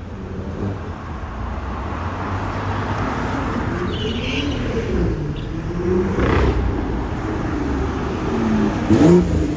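Street traffic with car engines running, their pitch rising and falling. Near the end a BMW M2 drives up close, and its engine rises sharply in pitch at the loudest moment.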